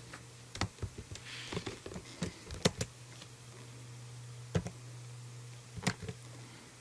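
Computer keyboard typing: a quick run of key presses in the first three seconds, then single key clicks about four and a half and six seconds in, over a low steady hum.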